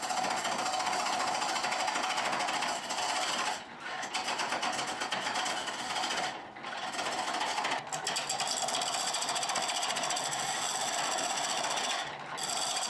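Turning gouge cutting a dry hickory handle blank spinning on a treadle lathe: a steady shaving hiss of the tool on the wood that breaks off briefly four times as the cut is lifted.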